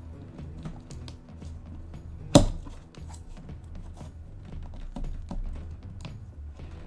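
Pocket knife blade working into a hard plastic Lego brick: small clicks and taps, with one sharp loud crack about two and a half seconds in. Background music plays throughout.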